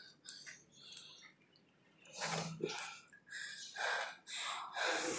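Hard, irregular breathing of a tired athlete: a run of short gasps with brief pauses between them.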